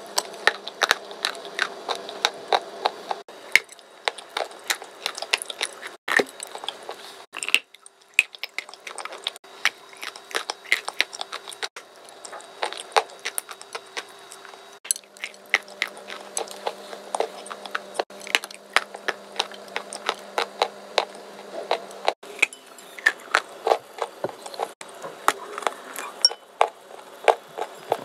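Close-miked biting and chewing of a dry, crumbly pale block: irregular sharp crunches and crackles, several a second. A faint steady low hum comes and goes underneath.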